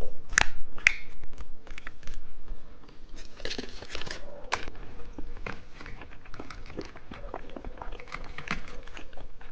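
Eating sounds close to the microphone: many short clicks of biting and chewing, with a burst of plastic wrapper crinkling about three and a half seconds in.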